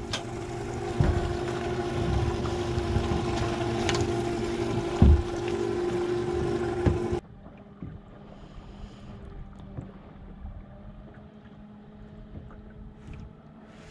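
Suzuki 140 four-stroke outboard idling steadily beside the aluminium boat, with a couple of sharp knocks on the hull. About seven seconds in it cuts suddenly to a much quieter stretch of faint wind and water with a low steady hum.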